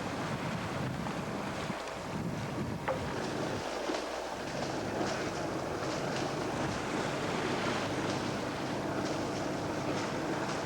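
Wind buffeting the microphone over the steady rush of water along the hull of a sailboat under way.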